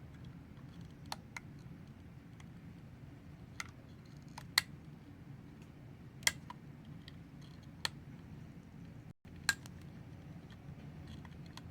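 Scattered sharp clicks and ticks, about seven at irregular spacing, from a thin metal carving knife blade prying at a broken headphone plug lodged in an Xbox One controller's headphone jack.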